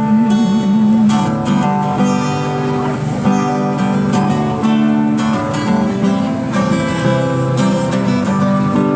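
Acoustic guitar strumming chords steadily, with no singing.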